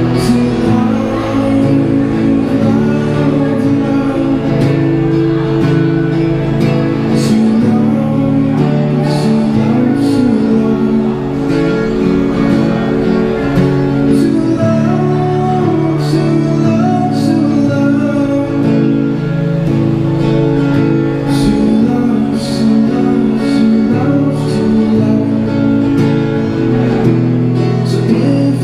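Amplified acoustic guitar playing sustained chords through a small battery busking amp, with sharp percussive ticks about once a second in places and some singing heard.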